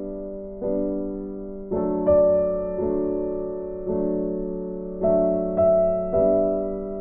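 Background piano music: slow, gentle chords struck about once a second, each fading out.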